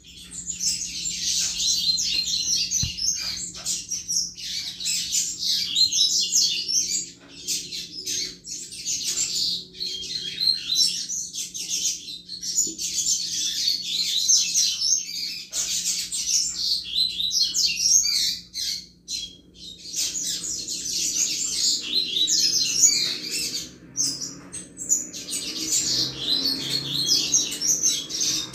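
Double-collared seedeater (coleiro) singing the 'chuva' song type: long runs of fast, high twittering notes, broken by a few short pauses.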